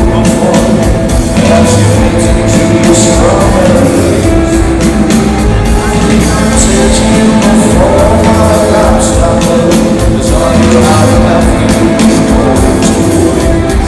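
Rock band playing live and loud, with a lead singer over guitars, bass and regular drum strikes.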